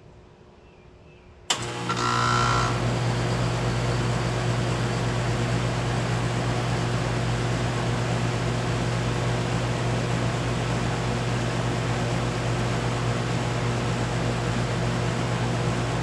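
2012 Bryant Legacy Line 2.5-ton central air conditioner starting up. A sharp click comes about a second and a half in, with a brief high whine just after. Then the scroll compressor's steady low hum and the condenser fan's rush of air settle in and run evenly.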